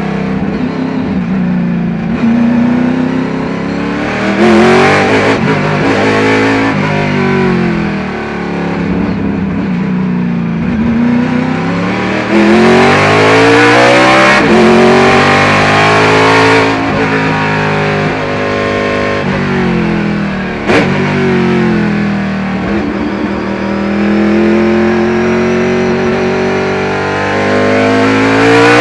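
1976 Chevy IMSA Monza race car's V8 engine heard from inside the cockpit at racing pace, its pitch climbing hard and then dropping again several times as it accelerates and slows for corners. A single sharp click about two-thirds of the way through.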